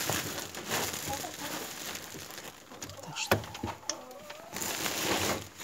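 Woven plastic feed sack rustling and crinkling as it is handled, with a sharp click about three seconds in.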